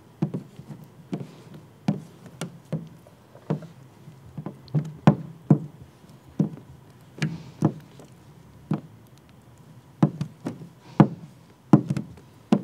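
A plastic squeegee working wet paint protection film over a vehicle headlight: about twenty short, irregular knocks and taps, one to two a second, as the squeegee edge strikes and drags across the film and lens.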